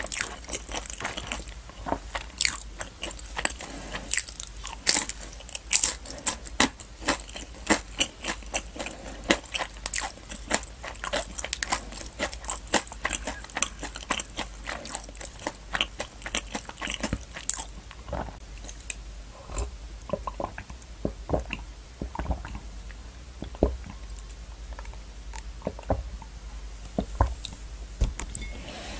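Close-miked chewing of a crisp fried samosa piece: dense crunching for roughly the first two-thirds, then slower, softer chewing.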